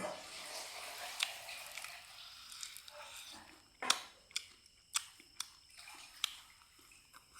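Close-miked chewing and mouth smacking of a person eating duck. A crackly stretch of chewing runs through the first couple of seconds, followed by a string of sharp wet smacks about half a second apart.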